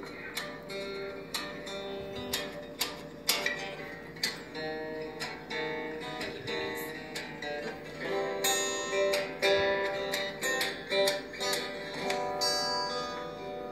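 Acoustic guitar picked and strummed in an instrumental passage without singing, played back through a tablet's speaker.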